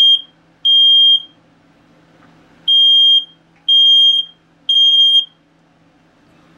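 X-Sense SC01 combination smoke and CO alarm sounding its smoke alarm: loud, high-pitched beeps of about half a second each, in groups of three with a pause between groups, the pattern that signals smoke detected. It ends one group, pauses, sounds a full group of three and pauses again.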